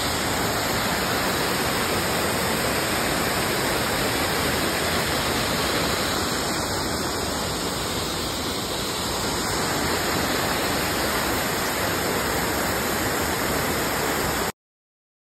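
A waterfall's steady rushing: the heavy flow of Dry Falls pouring over the rock ledge and down into the gorge. It cuts off suddenly about a second before the end.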